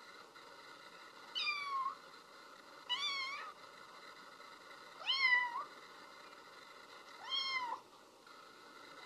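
Young kitten mewing four times, short high mews about two seconds apart, over a faint steady hiss.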